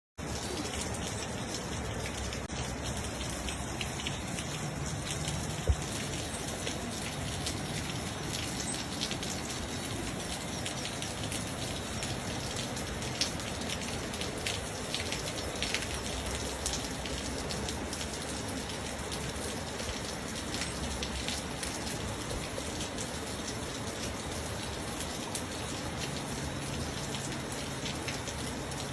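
Steady heavy rain falling, with scattered sharp ticks of drops striking close by.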